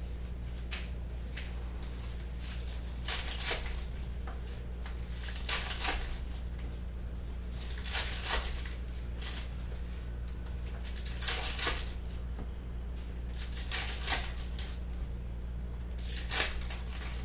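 Foil wrappers of Panini Prizm basketball retail card packs being torn open and crinkled, about six short crackling rips a couple of seconds apart, over a steady low electrical hum.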